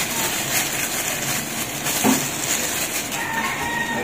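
Granulated sugar pouring from a plastic bag into a plastic basin, a steady grainy hiss. A faint drawn-out tone, slowly falling in pitch, comes in about three seconds in.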